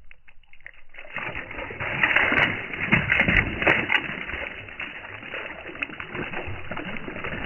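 Water splashing and rushing, starting about a second in and loudest a couple of seconds later, then carrying on steadily.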